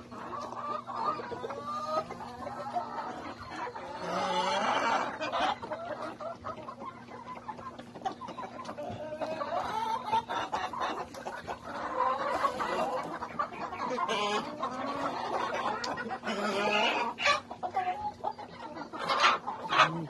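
A mixed flock of laying hens, Rhode Island Reds, Barred Plymouth Rocks and Black Australorps among them, clucking and murmuring continuously, many birds calling over one another, with a few sharper sounds near the end.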